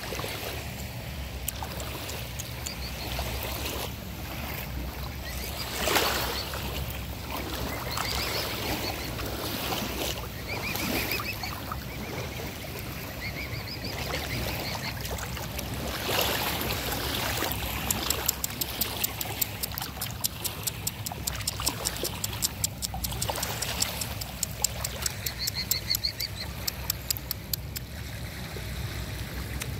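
Small waves lapping and trickling at the water's edge. About two-thirds of the way in, a rapid run of wet clicks begins, about five a second: a mute swan dabbling its bill at the surface as it feeds.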